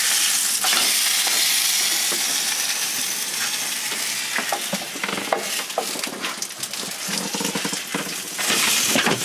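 Quesadilla sizzling in a hot frying pan, a steady hiss full of small crackles, a little louder again shortly before the end.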